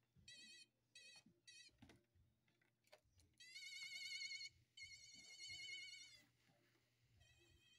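Electronic novelty toy sounding a high, warbling electronic tone in bursts: three short ones, then two longer ones of about a second each, and another starting near the end.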